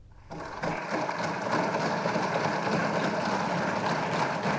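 Assembly members applauding in a large legislative chamber: a dense, steady clatter of many hands that starts abruptly about a third of a second in and swells a moment later.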